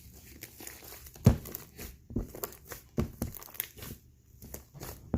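Fluffy slime made with shaving foam being squished and stretched by hand, giving irregular sharp pops and crackles as air pockets burst, the loudest pop about a second in.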